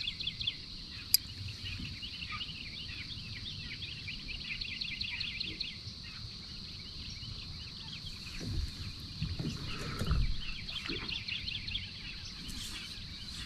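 Birds chirping continuously in a dense chorus over a faint steady high hum, with a sharp click about a second in and a few dull low knocks around eight and ten seconds.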